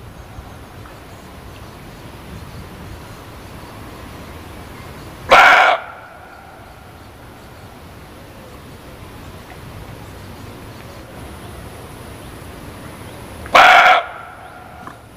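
Muntjac (barking deer) giving two short, loud barks about eight seconds apart, over a faint steady background hiss.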